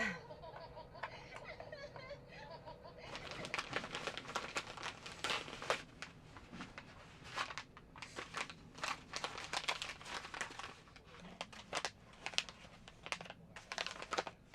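Plastic packaging crinkling as it is handled, in irregular crackly bursts that start about three seconds in and carry on, with short pauses, to the end.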